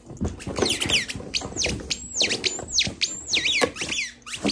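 Squeaky dog toy squeaking over and over, about two squeaks a second, each a high-pitched note sliding downward.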